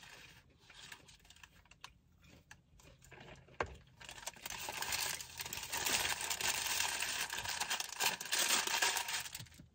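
Paper fast-food wrappers crinkling and rustling as they are handled and folded up, faint and scattered at first, then a denser, louder crackling from about four seconds in until just before the end.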